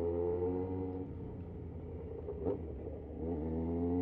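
Yamaha XJ6's inline-four engine running at a fairly steady speed while riding, its pitch climbing and getting louder about three seconds in as it accelerates.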